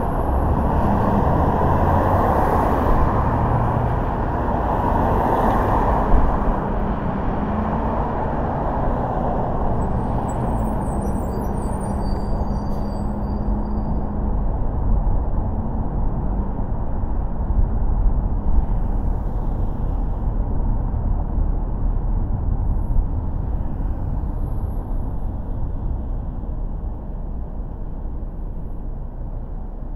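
A car being driven, with steady road and engine noise.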